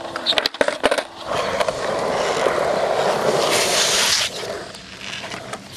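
Skateboard on concrete: a few sharp clacks about half a second in, then a long grind along a metal rail for about three seconds, harshest near the end and cutting off suddenly. Quieter wheel rolling follows.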